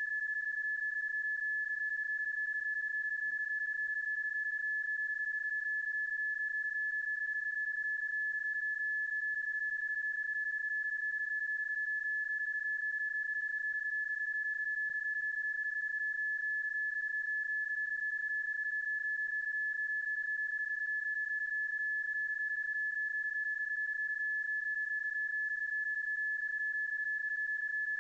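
PSK31 data-mode tone: a single steady tone held at one pitch, unbroken and even in level. It is a sound effect stretched and looped over the footage, not the real on-air signal, so it cannot be decoded.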